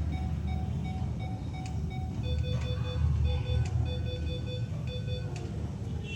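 Electronic alarm beeping from medical monitoring equipment: short evenly spaced tones, with a second, lower-pitched beep pattern taking over about two seconds in. A steady low hum runs underneath.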